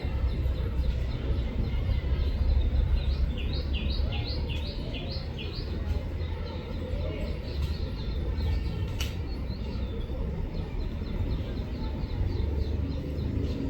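A bird calling a quick run of short, falling chirps, about three a second, then fainter repeats later on, over a steady low rumble.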